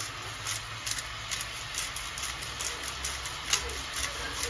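Chicken hearts frying in very hot oil over high heat, sizzling with scattered pops and crackles, over a steady low hum.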